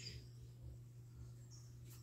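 Near silence: room tone with a steady low hum, and a faint brief high chirp about one and a half seconds in.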